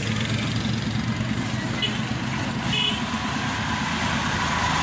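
Vehicle engine running steadily under road and traffic noise, with two short high chirps about two and three seconds in.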